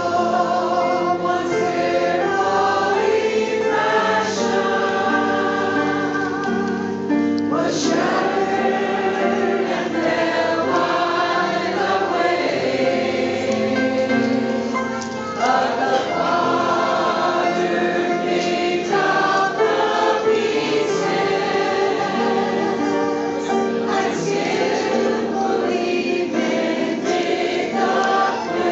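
A large combined choir singing a gospel song in parts, with male and female voices holding notes together.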